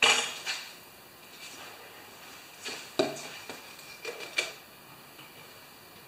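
Handling clatter of hard objects: a knock at the start, then sharp clinks about three seconds in and again around four seconds in, as a plastic cup and tools are handled on a metal mesh work cart.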